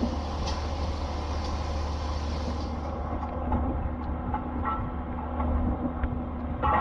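Strong wind buffeting the microphone as a steady low rumble, with a hiss of sea wash that fades about three seconds in and a short brighter sound near the end.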